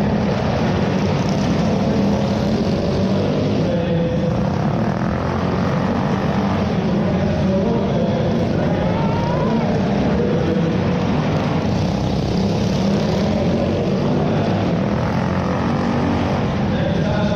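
Small pull-start minibike engine running steadily under the rider, with other minibike engines revving up and down alongside.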